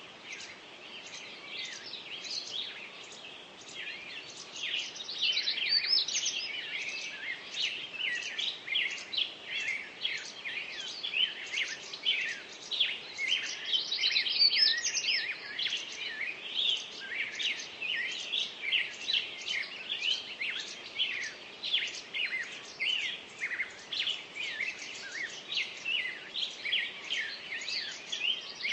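Many small birds chirping and singing at once: a dense, unbroken chorus of short, high calls overlapping throughout.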